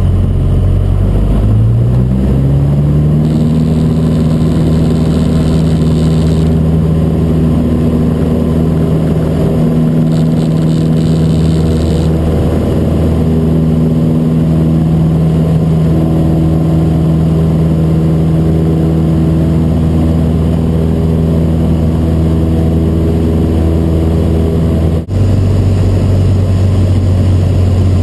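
Cessna 150's four-cylinder Continental O-200 engine and propeller heard inside the cockpit at takeoff power. The pitch rises about two seconds in as the engine comes up to full power, then holds steady through the takeoff run and climb. About three seconds before the end the sound dips and the pitch drops abruptly.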